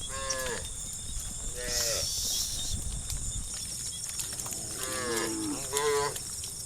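Cows mooing: about four short calls, each falling in pitch, the last two close together near the end.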